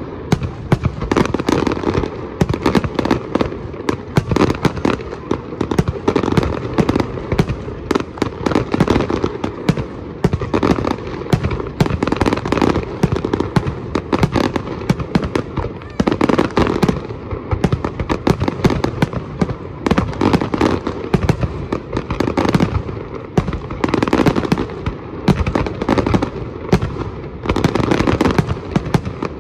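Fireworks going off: a dense, continuous run of rapid bangs and crackles with no pause.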